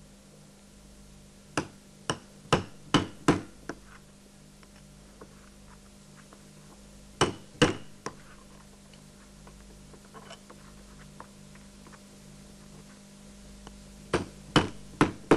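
Hammer blows on a cobbler's hole punch, driving it through a strip of rubber sole: a group of about five quick taps, two more about halfway through, and four more near the end.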